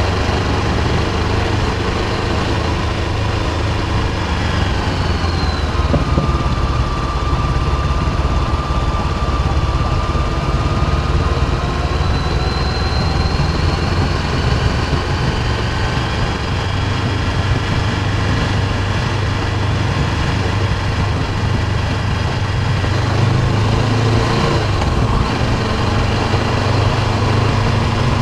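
Honda CB500X's parallel-twin engine running on the move: a steady low engine note with a thin whine above it that slides down about five seconds in and rises again partway through.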